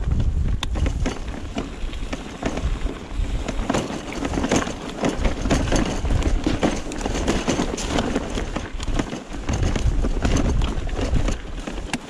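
Mountain bike ridden over rocky dirt singletrack, heard from a camera on the rider: tyres crunching on dirt and stones with frequent clicks and rattles from the bike, over a low rumble of wind on the microphone.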